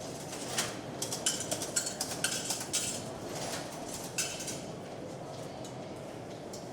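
Underground station ticket hall ambience: a steady low hubbub, with a quick run of metallic clinks and jingles from about half a second in until just past the middle.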